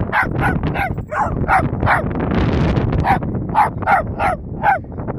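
Dachshund barking excitedly in a quick series of short, high yaps, about a dozen in all, with a pause of about a second midway.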